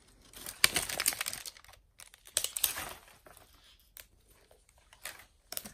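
Wrapper of an LOL Surprise ball being peeled and torn by hand, crinkling in two main bursts, about a second in and near the middle, with a short crackle near the end.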